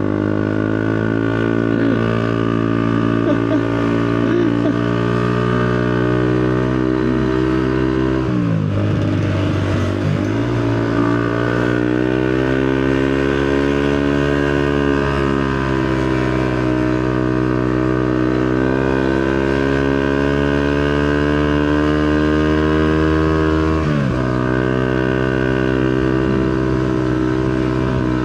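Motorcycle engine running under way at a steady pace. Its pitch dips and climbs back about eight seconds in, swells slowly up and down after that, and drops sharply about 24 seconds in.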